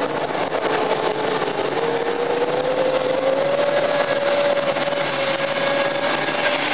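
Modified pulling tractor's engine running flat out as it hauls the weight sled down the dirt track. Its pitch dips near the start, then slowly rises and holds steady.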